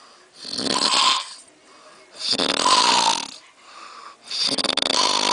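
A man snoring loudly: three snores, each about a second long, coming roughly every two seconds.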